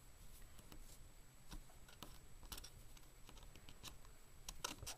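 Faint, scattered small clicks and light rubbing as fingers smooth soft polymer clay onto a small metal craft blade, with two slightly louder clicks close together near the end.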